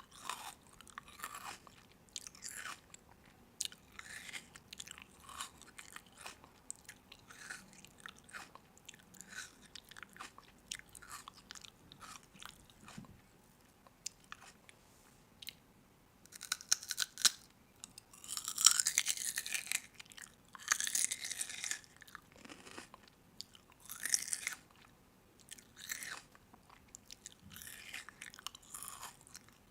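A person biting and chewing crunchy food close to the microphone, with irregular crisp crunches that grow louder for several seconds past the middle and again briefly a little later.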